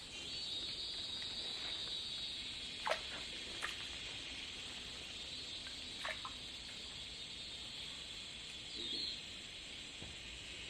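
Steady high-pitched insect chorus of the forest, with a few short sharp clicks about three, three and a half, and six seconds in.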